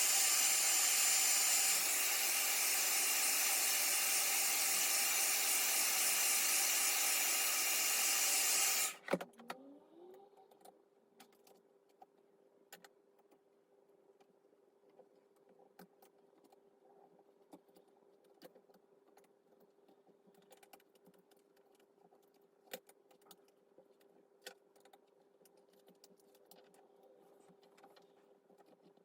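A hot-air blower running with a steady rushing hiss, switched off about nine seconds in. After it stops come faint scattered clicks and taps over a low steady hum.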